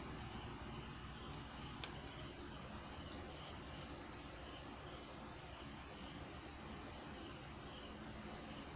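Crickets trilling steadily at night in a high, even chorus over a low background hum, with one faint click about two seconds in.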